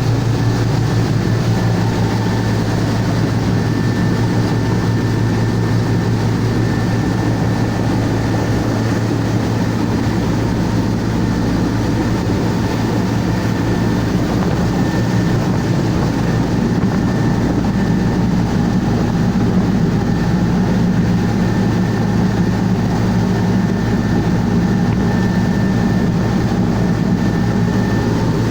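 Cummins marine diesel engine of a passenger launch running steadily: an even, deep drone with a thin, steady high whine over it.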